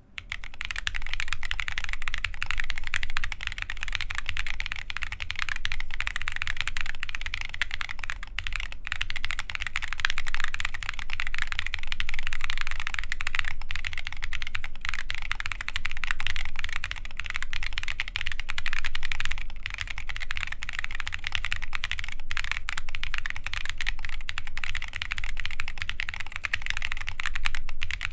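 Fast, continuous typing on a mechanical keyboard with lubed Holy Boba tactile switches under KAT Alpha keycaps on a carbon fiber plate: a dense run of key clacks that starts right at the beginning.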